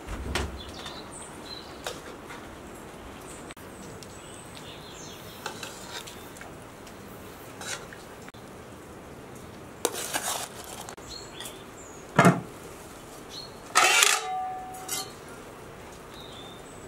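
A metal spoon scraping and clinking against a steel cooking pot and a glass bowl as lamb stew is spooned out, a few scattered clinks and clanks with one short ringing clatter, over a steady low hiss.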